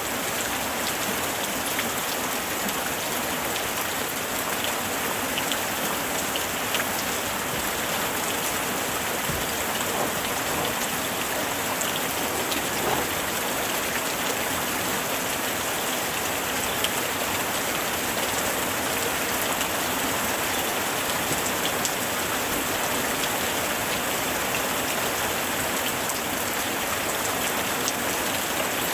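Steady rain falling, an even hiss with many individual drops pattering and ticking on a surface.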